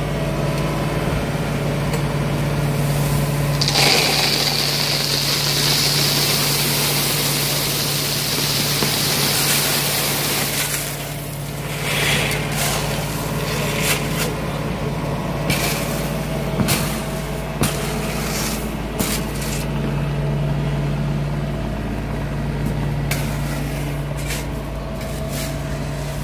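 Small engine of a compact tracked loader idling steadily under gravel being shoveled into a drain trench. There is a stretch of rushing gravel noise from about four to eleven seconds in, then a run of sharp shovel scrapes and clinks on stone.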